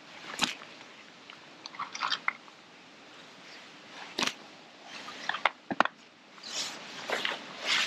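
Short crunchy clicks and chewing, someone eating crisps close to the microphone, mixed with a few sharp snaps from a bait catapult being drawn and fired to loose-feed the swim. The crunching is densest near the end.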